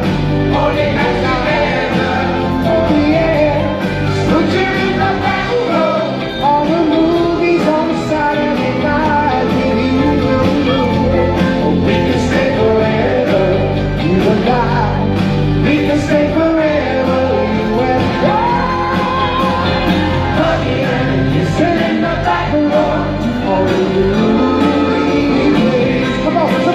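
Vocal group singing a soul-pop song live, with lead and harmony vocals over a backing band of drums, bass, electric guitar and keyboards.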